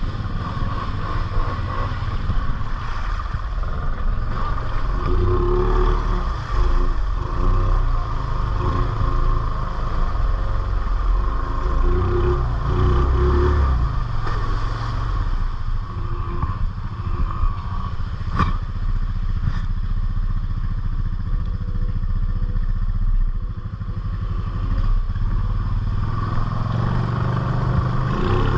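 ATV engine running under load, the throttle rising and easing off as the machine rides rough, wet trail, with rattling of the machine and a sharp knock about two-thirds of the way through.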